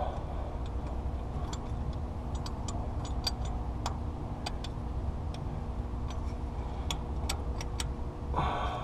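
Steady low mechanical hum, with scattered light metallic clicks and ticks of parts and tools being handled.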